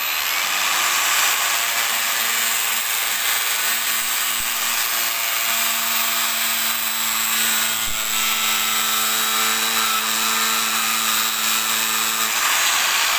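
Angle grinder fitted with a homemade sandpaper cutting disc, running steadily as it cuts through plastic electrical conduit.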